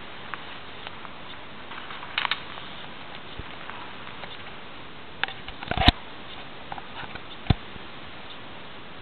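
Steady hiss with scattered clicks and rustles, and a few sharper knocks. The loudest knock comes just before six seconds in and another about a second and a half later.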